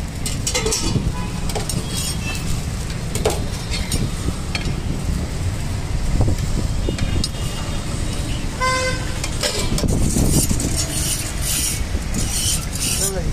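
Roadside traffic rumble with a vehicle horn tooting once, briefly, about nine seconds in. A metal spatula clinks and scrapes on a flat iron dosa griddle.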